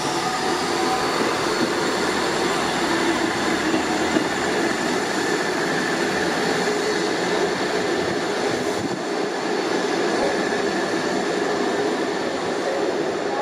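South Western Railway Class 159 diesel multiple unit running past and away under power: a steady, loud mix of diesel engine noise and wheels on rail, with a few held whining tones.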